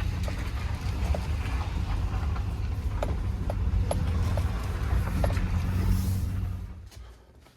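Steady low rumble of a car on the move, with a few faint clicks over it; the rumble drops away quickly near the end.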